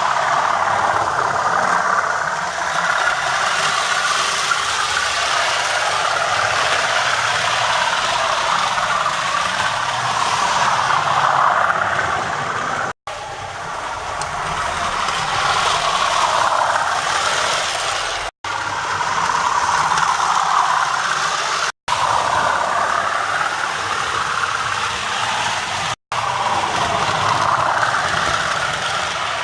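Recorded Class 37 diesel engine sound from a Hornby TTS sound decoder, played through the model locomotive's small onboard speaker as it runs. The sound cuts out completely for a split second four times.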